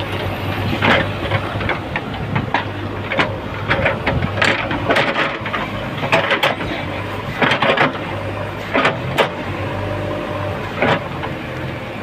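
JCB 3DX backhoe loader's diesel engine running steadily, with repeated sharp knocks and scrapes as the backhoe bucket works the pile of dug earth and tree root.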